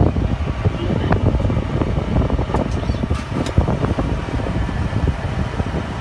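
Caterpillar D4 bulldozer's diesel engine running just after starting, a steady low rumble heard from inside the cab, with a few faint clicks about midway.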